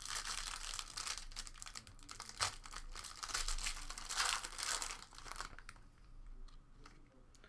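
Plastic wrapping being torn open and crinkled by hand, a dense crackling for about five seconds that then gives way to a few faint handling clicks.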